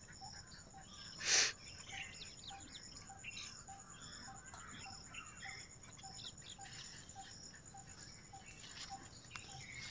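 Rural outdoor ambience: insects buzzing steadily with scattered bird chirps, and a low note repeated about twice a second. A short rustling noise comes about a second and a half in.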